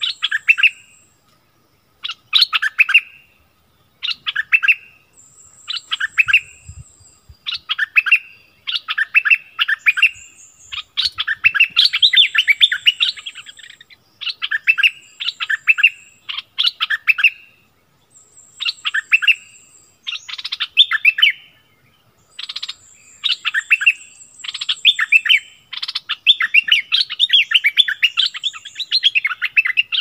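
Caged decoy bulbul (merbah lekir) singing to lure wild birds: phrase after phrase of quick, chattering notes with short pauses between them. A thin, high, steady note comes and goes in the background.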